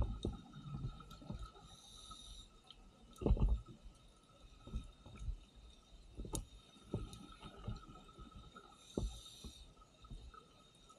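Scuba diver's breathing through a regulator heard underwater, sped up: two short hisses of inhaling, about two seconds in and near the end, and bursts of exhaled bubbles rumbling, the loudest a few seconds in. A faint steady whine runs under it.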